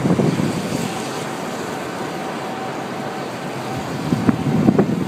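Steady rushing of wind and road noise heard from inside a car in a storm, with a few louder gusts near the end.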